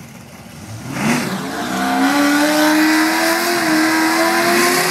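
A drag-racing car's engine revs up about a second in and is held high and steady during a burnout at the starting line, tyres spinning and smoking, then starts to drop near the end.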